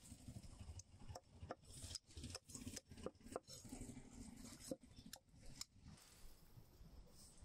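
Goat head and leg pieces being cut up with a blade: about a dozen sharp, irregular knocks and clicks, ending about six seconds in.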